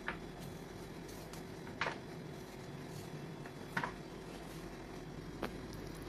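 Kitchen knife cutting through fresh coconut flesh, giving a crisp snap about every two seconds, four in all, over a steady hiss.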